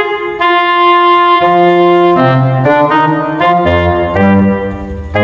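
Instrumental background music: sustained melody notes changing every half second or so, with a bass line coming in about a second and a half in.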